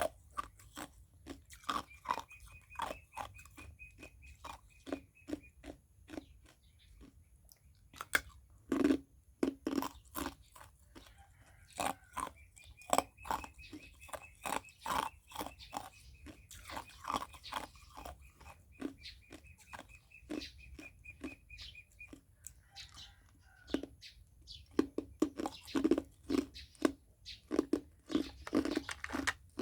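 A person chewing ice cubes: irregular, close-up crunches and cracks, some pauses between bites.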